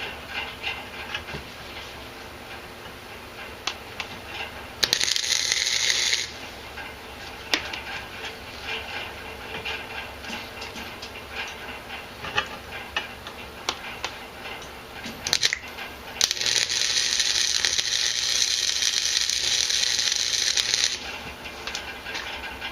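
Welding arc crackling in two bursts of steady hiss, a short one about five seconds in and a longer one of about five seconds in the second half. Between them come light metallic clicks and rattles of horseshoe pieces being handled.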